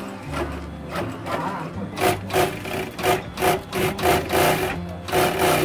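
Sewing machine stitching fabric in a quick series of short runs, starting about two seconds in, over background guitar music.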